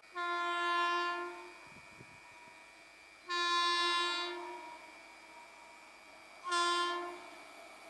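Indian Railways locomotive horn sounding three separate blasts, each a steady single pitch lasting about a second or a little more; the third is the shortest.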